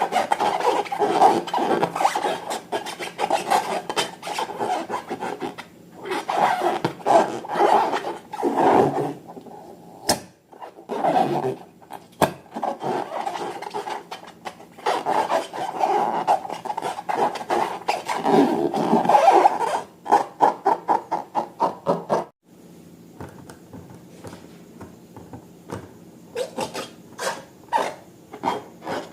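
Slime being worked by hand, with a rapid, choppy run of rubbing and squishing strokes broken by short pauses. In the last part it goes quieter, with quick crackling clicks.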